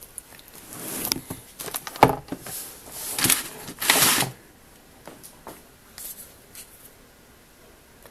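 Handling noises: rustling and scraping with scattered clicks, and a sharp knock about two seconds in, then quiet from about halfway through.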